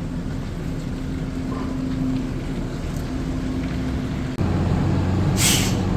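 A heavy diesel vehicle engine running steadily. About four seconds in it cuts and comes back louder and deeper, and a short hiss follows near the end.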